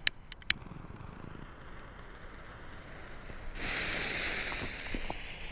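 Two sharp clicks near the start, then a low rumble. About three and a half seconds in, the lit fuse of a cone firework fountain starts to hiss loudly as it sparks.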